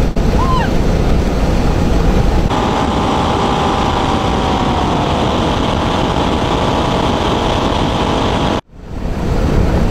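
The Bugatti 100P replica's engines and propeller running while the aircraft rolls along the runway, heard from a camera on the wing with heavy wind rush on the microphone. The sound grows fuller about two and a half seconds in and drops out for a moment near the end.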